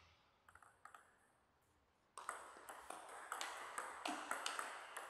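Table tennis: a few light taps of the ball about half a second in before the serve. From about two seconds in, a rally follows, with the ball clicking sharply off bats and table in quick succession.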